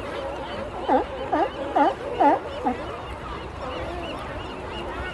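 Animal calls: five short, loud calls in quick succession, each dipping and rising in pitch, over a steady chatter of many smaller calls.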